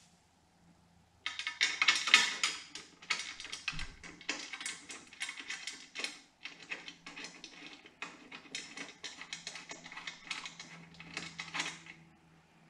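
Ratchet wrench clicking in quick strokes while bolts are run into the saddlebag mount on a motorcycle's rear fender strut. The rapid clicking starts about a second in and comes in uneven clusters.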